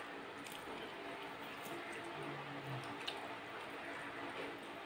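Fingers mixing rice and fried vegetables on a steel plate: soft squishing with a few light clicks, along with chewing.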